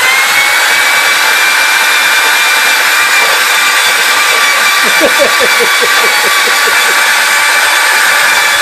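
Electric power tool motor running at full speed with a loud, steady high whine, having just spun up.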